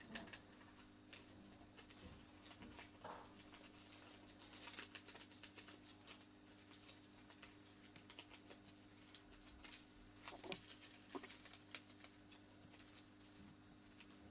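Faint scrabbling, rustling and small irregular clicks of Mongolian gerbils moving about among apple-tree leaves, wood and bedding, over a low steady hum.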